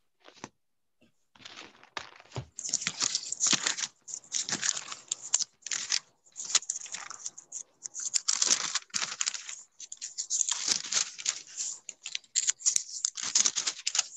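Irregular rustling and crinkling with scattered sharp clicks, starting about a second and a half in and going in uneven bursts, picked up by an open microphone on a video call.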